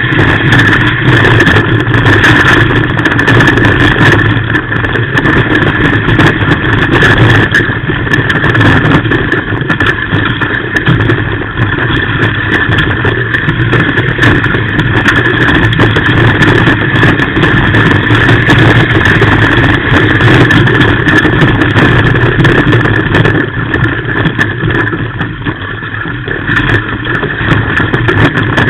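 Off-road race car's engine running hard, heard from inside the cockpit, loud and steady with road and chassis noise mixed in. It eases off briefly near the end, then picks up again.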